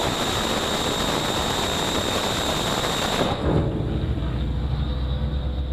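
Phalanx CIWS 20 mm Gatling gun firing one continuous burst, a dense unbroken roar that stops suddenly about three seconds in. A low steady rumble remains after it.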